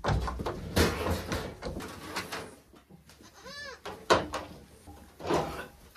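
A goat gives one short bleat, rising then falling in pitch, about halfway through. Around it are rustling and knocking as things are handled, with a sharp knock just after the bleat.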